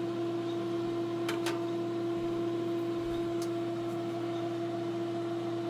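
SunGold 18 kW LFPV-series inverter charger humming steadily, powered up: one steady tone over a lower hum. A couple of faint ticks come about a second in and again a few seconds later.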